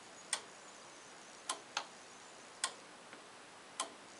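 Snap switch of a LUX CH-400 thermostat clicking as the temperature selector is moved across the set point, switching the system on and off. Five sharp clicks, about one a second, two of them close together near the middle.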